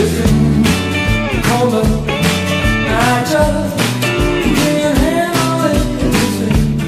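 Background music: a song with a singing voice over guitar and a steady drum beat.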